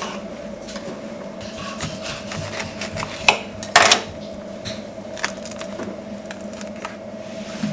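Food-storage containers and lids being handled while organizing a refrigerator: scattered light clicks and knocks, a sharper knock about three seconds in and a short clatter just after, over a steady low hum.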